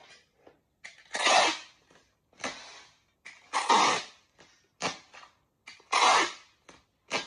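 Packing tape pulled off a handheld tape dispenser in three loud ripping strips, about two and a half seconds apart, with lighter crinkles and taps of plastic bubble wrap between them.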